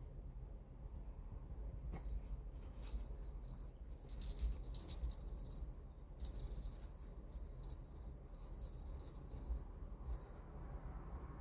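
Cat teaser wand toy rattling and jingling in irregular bursts as a kitten bats at it. It starts about two seconds in, is busiest in the middle and stops near the end.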